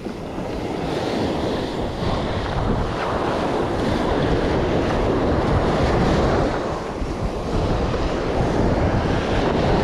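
Small ocean waves breaking and washing up a sandy beach, with wind buffeting the microphone.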